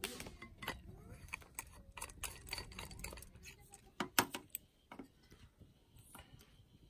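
Utensils clicking and tapping on metal tableware as stew is dished out of a small cast-iron pot onto a stainless steel plate and handled with chopsticks. The clinks come in a quick scatter, the loudest about four seconds in, and thin out in the last couple of seconds.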